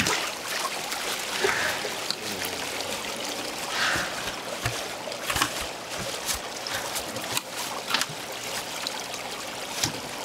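Water trickling and running from aerated live-fish tanks, with a splash at the start as water pours from a lifted basket. Short knocks and clicks run throughout as a live shark is handled in a plastic crate.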